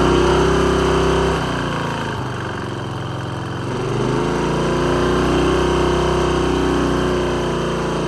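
Riding lawn mower engine running at high revs; the revs drop about a second and a half in, then climb back up about four seconds in and hold.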